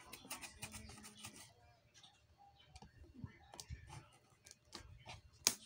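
Hands handling a tape-sealed cardboard box: a run of small clicks and scratches on the cardboard and packing tape, with one sharper click near the end.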